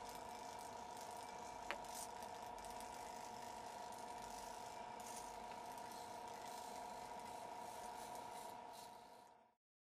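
Small hobby servos of a pan-and-tilt camera mount whirring in short bursts over a faint steady electrical hum, with one sharp click a little under two seconds in. The sound fades out near the end.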